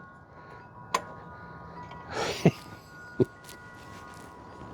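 Hand tools being handled while a wrench is tried on a steering-box line fitting: a sharp metallic click about a second in, then a brief rustle and two short dull knocks, over a faint steady ringing tone.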